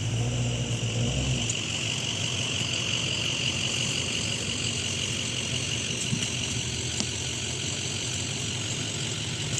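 Off-road vehicle's engine running steadily, with a deep low rumble that falls away about a second and a half in.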